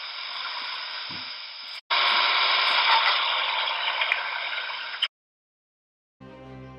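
Steady static-like hiss. It drops out for an instant, comes back louder, then cuts off abruptly, and after a second of dead silence music begins near the end.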